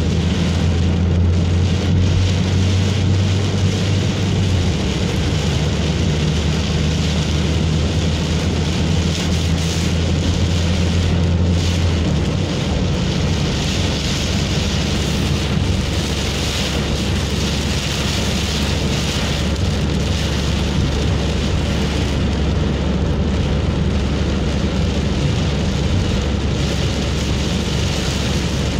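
Heavy storm rain pelting a moving car, heard from inside the cabin over the steady drone of the engine and tyres on the wet road. The low drone shifts about twelve seconds in.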